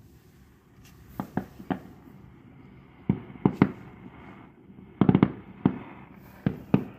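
Fireworks bursting: a scattered series of sharp bangs, a few at a time, with a quick cluster of several about five seconds in.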